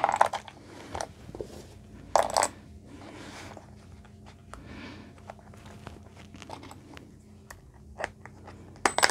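Plastic drill-and-driver bit case being snapped open, then small metal bits clicking and rattling in their plastic slots as one is picked out. The loudest clatter is at the start and about two seconds in, with lighter clicks after.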